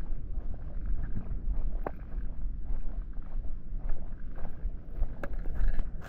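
Wind buffeting the camera microphone: a heavy low rumble that rises and falls unevenly, with a few sharp clicks.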